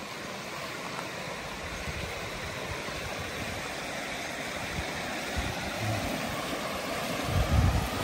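River water spilling steadily over a small concrete weir, an even rushing hiss, with a few low bumps near the end.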